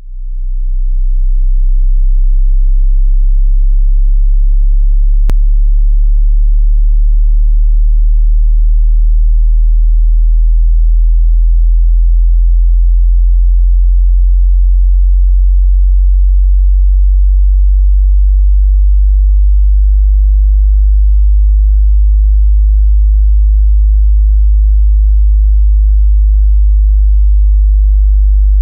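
Electronic sub-bass sine tone, very low (around 50 Hz) and loud, fading in at the start and then holding steady. A single faint click about five seconds in.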